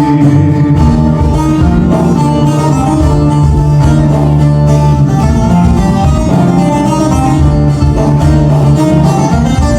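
Instrumental break of a Turkish folk song played live by a band: plucked string melody over bass with a steady beat, no singing.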